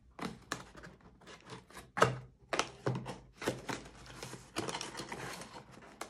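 Cardboard box packaging handled by hand: rustling and scraping of cardboard inserts with a string of knocks and taps, the loudest about two seconds in.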